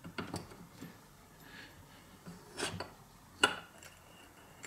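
A hydraulic bottle jack's steel ram being pushed back down into its cylinder by hand: faint rubbing with a few light metal clicks and knocks, the sharpest about three and a half seconds in.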